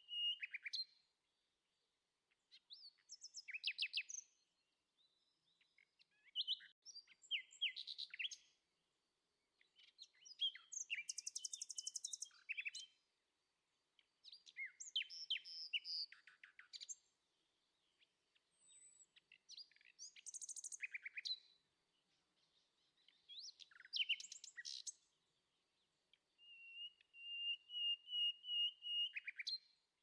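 Small songbirds singing in short bursts of quick chirps and trills every few seconds, with near silence between the bursts. A steady, rapidly trilled high note comes near the end.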